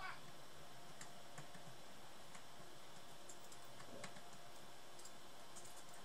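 Faint, irregular small clicks and ticks from soldering a power jack onto a laptop motherboard, as the soldering iron and a hand tool touch the jack's metal pins.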